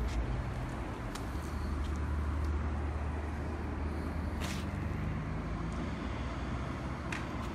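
The 2.2 hp engine of a Kubota MIDY TMA20 mini tiller running steadily at low speed, with a couple of light clicks about a second and four and a half seconds in.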